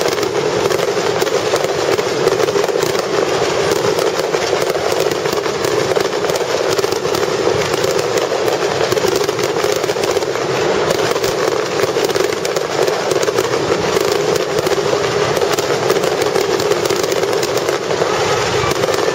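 Aerial fireworks display going off in a dense, continuous barrage: rapid overlapping bangs and crackling with no break.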